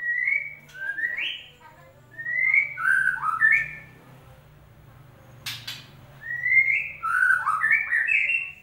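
White-rumped shama singing: phrases of clear whistled notes that slide up and down, in three bursts with a pause in the middle broken by a sharp click.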